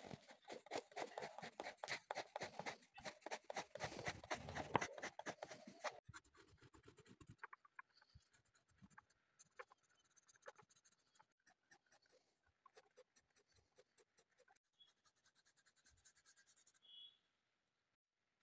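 DOMS coloured pencil scratching on paper in rapid shading strokes. The strokes are dense and loud at first, then fainter and sparser from about six seconds in, and stop shortly before the end.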